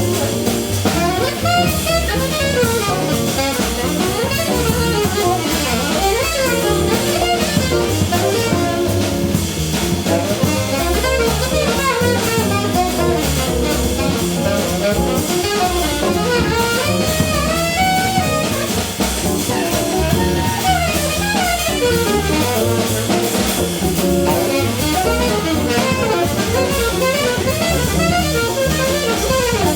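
Small jazz band playing live: a guitar and saxophone over bass and drum kit, playing steadily without a break.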